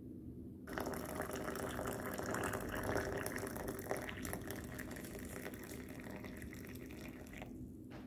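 Water poured from a glass kettle into a ceramic mug holding a tea bag: a steady splashing pour that starts about a second in and stops near the end.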